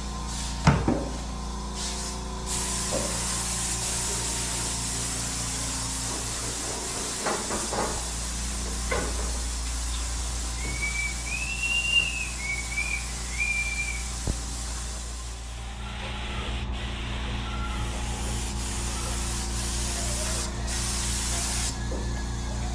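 Steady hiss of a compressed-air paint spray gun over a low steady hum, with a sharp knock about a second in and a few lighter knocks after. A brief high chirping comes about halfway through.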